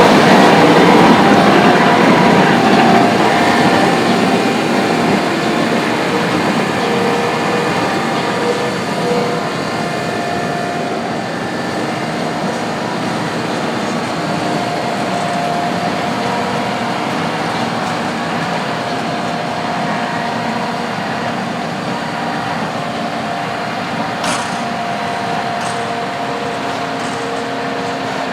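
Heavy farm machinery running: engine and drivetrain noise with steady whining tones, loudest at the start and dropping away over the first ten seconds or so as the machine moves off.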